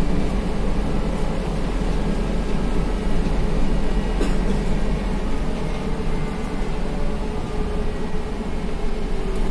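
Cabin noise of an SVARZ-MAZ-6275 trolleybus under way: a steady low rumble from tyres and running gear with a faint, even hum from the electric drive. A single click sounds about four seconds in and another near the end.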